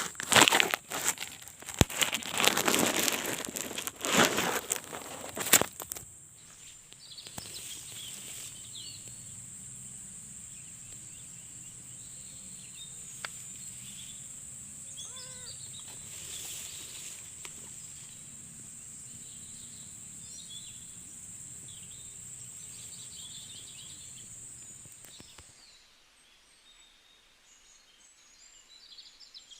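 Open-field ambience: scattered birds chirping over a steady high-pitched hum, which cuts off about 26 seconds in. The first six seconds hold loud rustling and knocks close to the microphone.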